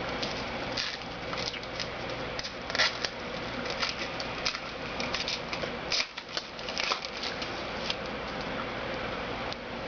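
Trading cards being handled and flipped through by hand: irregular soft clicks and rustles of card stock, over a steady hiss.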